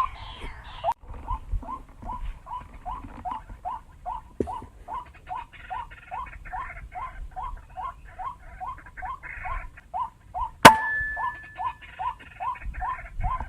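Rail lure call played from a loudspeaker: a steady, machine-regular series of short upward-sweeping notes, about two and a half a second. About ten seconds in comes one sharp, loud click, followed by a brief high tone.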